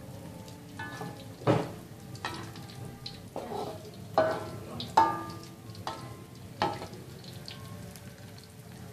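Nuggets frying in hot oil in a pan, with a metal utensil knocking against the pan about six times, each knock ringing briefly.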